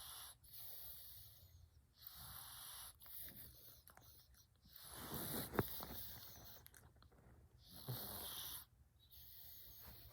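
Domestic cat snoring: rasping breaths in and out, repeating every second or two, with a sharp click about halfway through at the loudest breath.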